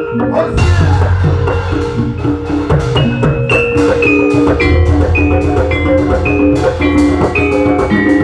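Javanese gamelan music accompanying an ebeg hobby-horse dance: struck metal keyed instruments ring out a repeating melody over drum strokes and deep sustained low tones.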